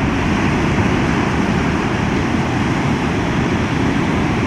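Steady rushing noise of breaking surf, with wind on the microphone.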